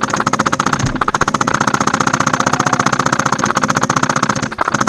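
Custom HPA G&P M249 Para airsoft light machine gun firing full auto: a rapid, even, mechanical rattle of shots, broken by a short pause about four and a half seconds in.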